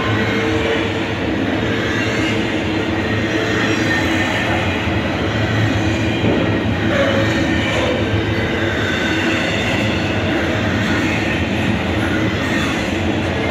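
Double-stack intermodal container cars of a freight train rolling past at close range, a steady loud rumble and rattle of steel wheels on the rails, with thin high wheel squeals coming and going.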